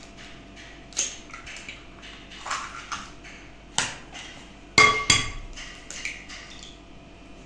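Eggs cracked against the rim of a glass mixing bowl: a series of sharp taps and knocks, the loudest about five seconds in leaving the glass ringing briefly.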